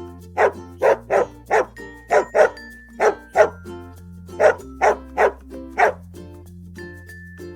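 A dog barking about a dozen times in quick pairs and threes over light, steady children's background music.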